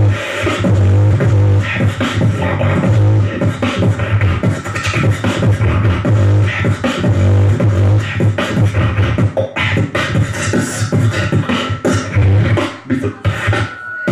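Human beatboxing amplified through a handheld microphone: a fast run of percussive mouth sounds over a held, steady low bass hum, thinning out and dropping in level near the end.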